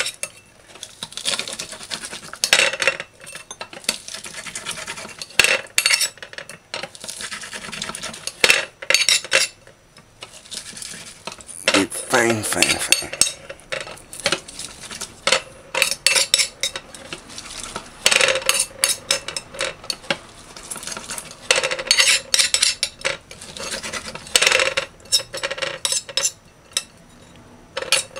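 Knife blade scraping and clicking against a plate as garlic is mashed and chopped on it, in irregular strokes.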